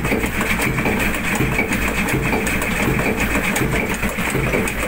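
An old tugboat's 60-horsepower slow-turning diesel engine running steadily in its engine room, an even mechanical clatter over a low hum.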